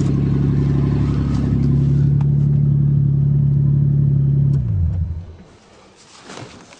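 1984 Toyota Cressida engine running steadily at idle, then switched off about four and a half seconds in, its note falling as it runs down and stops. It is running on fuel left in the tank since 2000.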